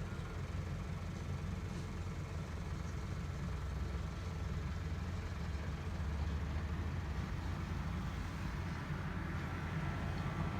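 An engine running steadily, a low, even rumble.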